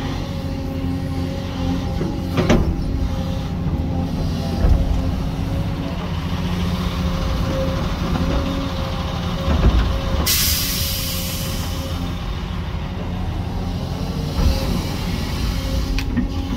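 Hyundai HX220AL excavator's diesel engine running steadily under work, with several heavy knocks and a burst of hiss about ten seconds in.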